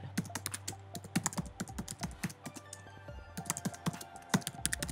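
Typing on a computer keyboard: a quick, uneven run of keystrokes, with one sharper keystroke near the end, over background music.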